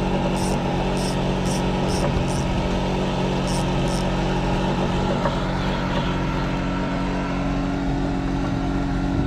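Small engine running steadily. A quick run of light ticks sounds over it in the first two seconds, and two more come about three and a half seconds in.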